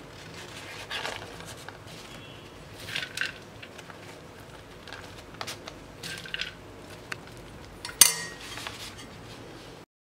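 A steel spoon scraping and clinking against a stainless steel bowl as it scoops out spiced puffed rice, with a few short scrapes and one sharp clank about eight seconds in. The sound cuts off suddenly near the end.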